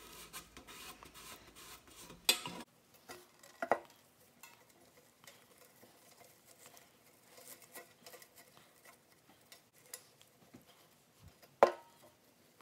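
Quiet handling of a small painted metal pail while wired burlap ribbon is wrapped and tied around it: soft rustling and rubbing, broken by a few sharp knocks, the loudest near the end.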